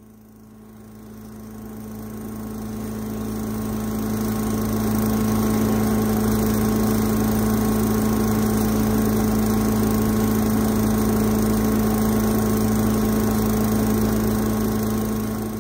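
Cyclone Rake debris loader's engine and blower running steadily, a low drone that grows louder over the first few seconds and then holds even.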